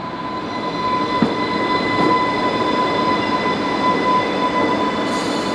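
Class 484 electric train, converted ex-London Underground D-stock, pulling into the platform, with a steady high whine over the rumble of its wheels that grows slightly louder as it comes closer.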